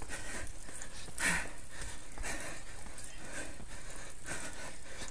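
A cyclist breathing hard and fast in quick, even puffs, about two a second, from the effort of pedalling up a very steep street.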